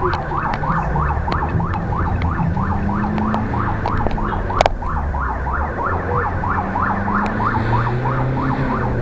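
Emergency rescue vehicle's electronic siren running in a fast up-and-down wail, about two and a half cycles a second, heard from inside the cab over engine and road noise, as the vehicle answers an emergency call. A single sharp knock about four and a half seconds in.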